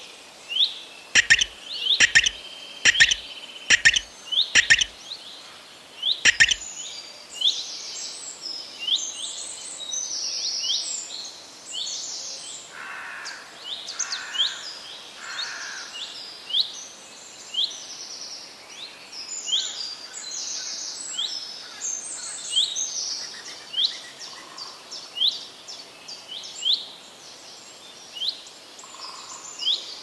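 Songbirds singing and chirping, with many short high chirps and quick falling notes repeating throughout. Near the start a run of six sharp, loud sounds comes about a second apart.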